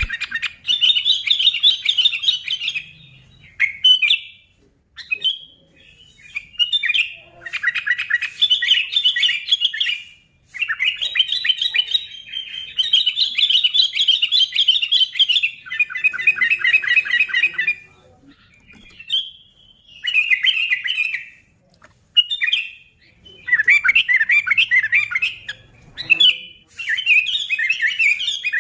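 Sooty-headed bulbul (kutilang) singing loudly in repeated bursts of rapid, chattering notes. Each phrase lasts one to three seconds, with short pauses between phrases.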